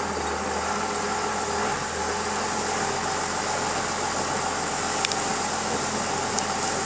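1996 Dodge Ram 2500's Cummins turbo-diesel inline-six running steadily at low speed while towing an uprooted juniper on a chain. A small click about five seconds in.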